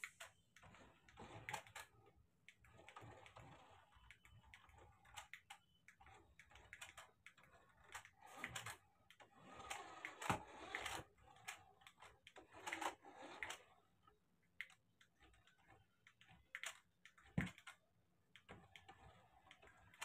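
Faint whirring of a toy RC car's small electric drive motor and gears in short bursts as it drives and turns, with scattered sharp clicks.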